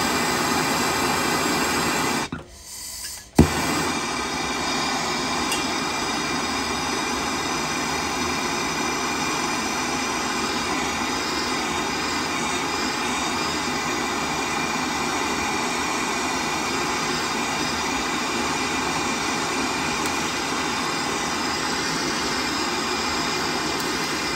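Gas blowtorch flame running steadily while heating a copper pipe joint to melt the solder. It cuts out a little after two seconds in and comes back after a sharp click about a second later.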